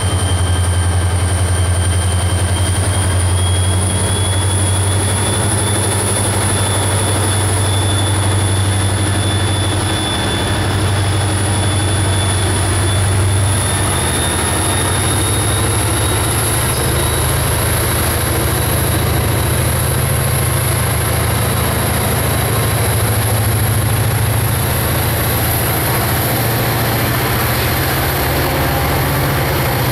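CN SD40-2 diesel-electric locomotive's turbocharged EMD 645 engine working hard as it throttles up, a steady deep engine drone with a high turbocharger whine that climbs slowly in pitch as the locomotive passes close by.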